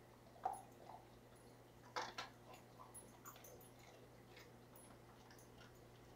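Near silence: a faint steady low hum with a few soft clicks, the sharpest about half a second in and a short cluster about two seconds in.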